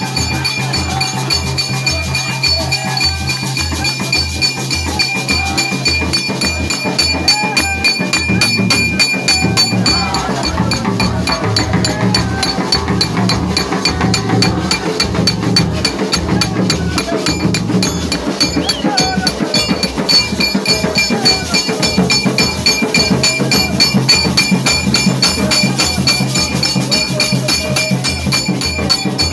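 Large hand drums beaten in a steady beat, about two strokes a second and busier after the first third, with a rapid high rattle over them and a crowd singing along: congregational worship music with drumming.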